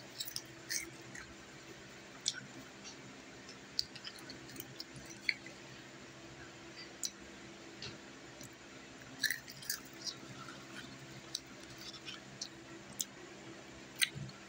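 A child chewing and crunching chips, heard as irregular short, sharp crunches and clicks. A faint steady hum from an electric fan runs underneath.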